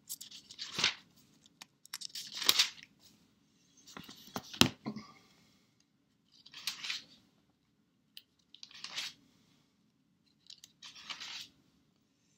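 Pages of a Douay-Rheims Bible being turned by hand: about six short papery swishes, one every two seconds or so, with a sharp snap near the middle.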